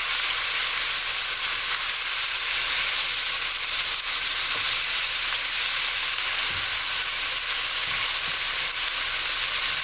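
Chicken, cauliflower and cabbage frying in oil in a pan: a steady sizzle.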